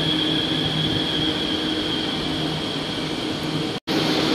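Electric metro train (MRT Purple Line) running along the platform and coming to a stop. A steady high whine and a low hum over rumbling noise, with the low hum fading out about a second in. A brief dropout near the end.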